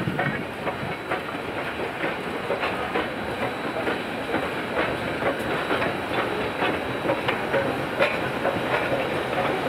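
Southern Railway 630, a 2-8-0 steam locomotive, hauling passenger cars across a steel truss bridge, its wheels clicking irregularly over the rail joints above a steady rumble.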